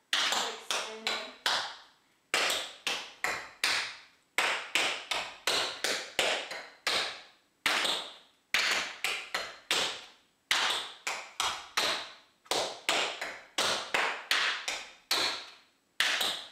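Tap shoes' metal taps striking a practice board, danced unaccompanied: quick sharp clicks in rhythmic phrases of several strikes, separated by brief pauses.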